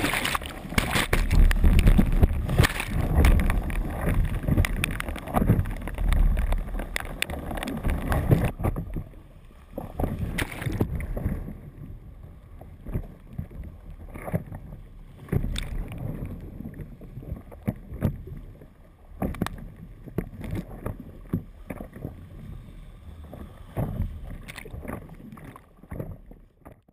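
Whitewater rushing over a board-mounted action camera, heavy and rumbling while the lens is awash for the first eight seconds or so. After that the noise is lighter, broken by repeated sharp splashes and knocks as a stand-up paddleboard is paddled through rapids.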